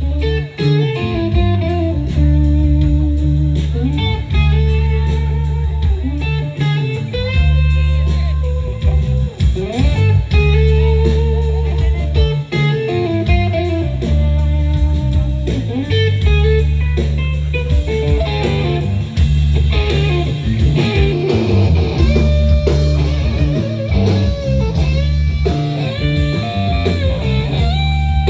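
Rock band playing live and loud: an electric guitar carries the melody over heavy bass notes, with drums.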